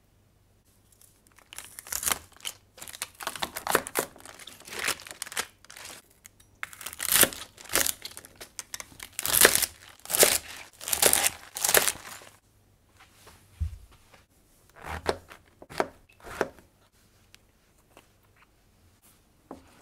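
Kitchen knife slicing through crisp komatsuna stalks on a wooden cutting board, a long run of crunchy cuts. This gives way to fewer, quieter snaps and rustles as a clump of shimeji mushrooms is pulled apart by hand.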